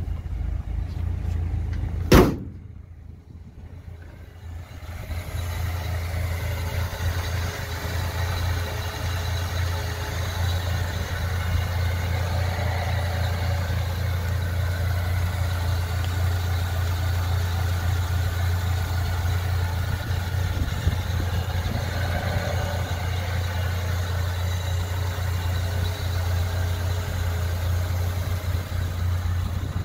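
1951 Ford F-1's flathead engine idling steadily. A single sharp bang about two seconds in.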